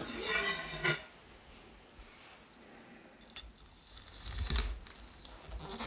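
A chef's knife scraping briefly as it is picked up off a wooden cutting board, then a quieter stretch, then small crunches and knocks from about four seconds in as the blade cuts through crispy duck breast skin to the board.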